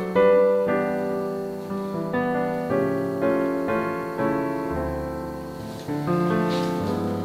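Background piano music, notes struck every half second or so.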